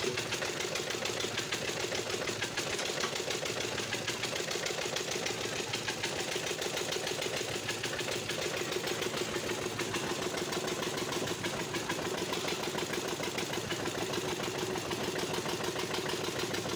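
Stationary flywheel engine of a palm-fruit mill running steadily with a fast, even beat.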